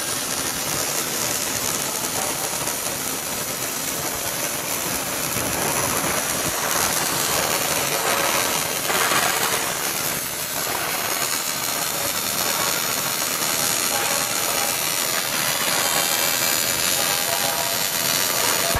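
Megmeet PM400F automatic MIG welder's arc burning along a seam, giving a steady hissing, crackling noise, with faint steady tones underneath.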